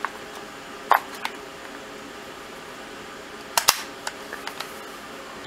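Clicks from a T4E HDR .68 caliber paintball revolver's cylinder being handled: one click about a second in with a lighter one just after, then a sharp double click about three and a half seconds in as the swung-out cylinder is shut into the frame, followed by a few light ticks.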